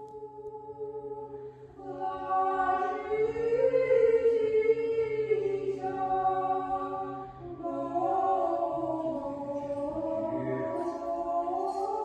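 A choir singing a slow chant in long held notes, faint at first and fuller from about two seconds in.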